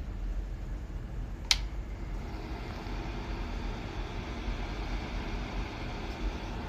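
Mini 400W electric fan heater: a sharp switch click about a second and a half in, then its fan whir builds up and runs steadily, over a low rumble.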